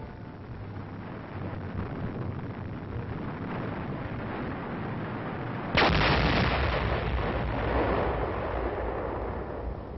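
Rumbling, crackling noise, then a single large demolition blast about six seconds in, as a bridge is blown, rumbling on and slowly fading.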